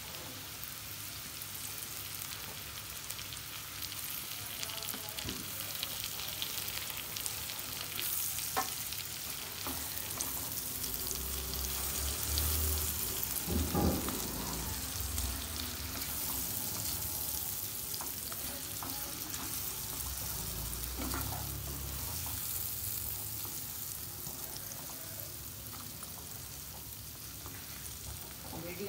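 Chopped onions with ginger and garlic sizzling steadily in hot oil in a kadhai, stirred with a wooden spatula, with a few scrapes and knocks of the spatula against the pan.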